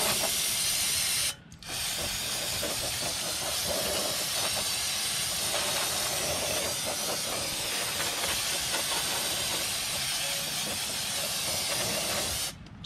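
Aerosol can of brake parts cleaner spraying through its extension straw into the inside of a steel oil pan, a steady hiss of the jet hitting the metal. It pauses briefly about a second and a half in and stops just before the end.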